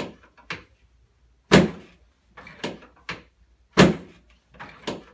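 Sharp thuds from a chiropractic adjustment done without twisting the spine: two loud thuds a little over two seconds apart, with lighter knocks around them.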